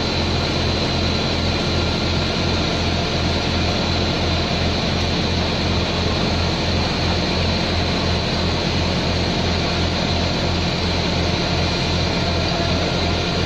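A heavy vehicle's diesel engine idling steadily, with an even low throb.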